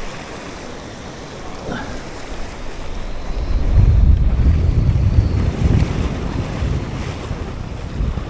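Ocean surf washing and foaming against a rocky shore, with wind buffeting the microphone in a low rumble that swells about three and a half seconds in and eases after about six seconds.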